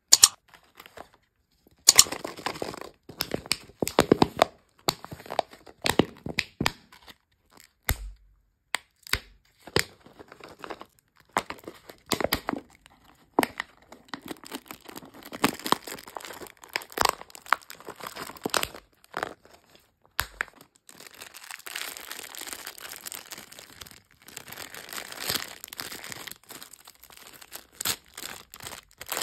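Thin plastic wrapper being peeled and torn off a plastic surprise egg, in sharp crackles and clicks. In the last third comes a denser, steady crinkling as a clear plastic toy bag is handled.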